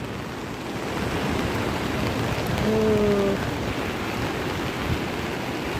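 A rain-swollen river rushing in a steady roar of water, mixed with rain. About three seconds in, a brief steady hum sounds over it.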